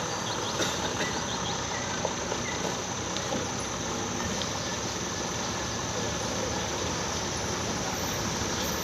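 Steady rumble of a vehicle travelling on a rough road, with a few small knocks and rattles in the first three seconds.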